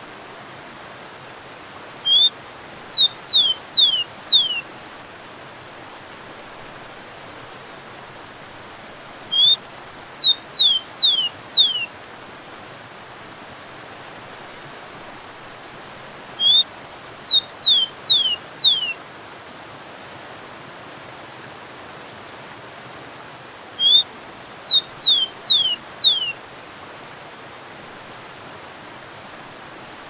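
Rufous-collared sparrow (tico-tico) singing four song phrases about seven seconds apart. Each phrase is a couple of short rising notes and then about four clear whistles, each sliding down in pitch. Under the song runs the steady rush of a waterfall.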